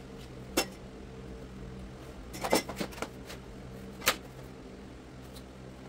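A few short, sharp clicks and knocks as luxury vinyl tile planks and hand tools are handled and set into the glue-down floor: one about half a second in, a quick cluster around two and a half seconds, another around four seconds, over a steady low hum.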